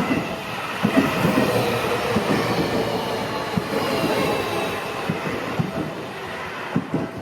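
Seibu 40000 series electric train passing, its wheels clacking irregularly over the rail joints; the noise slowly fades toward the end.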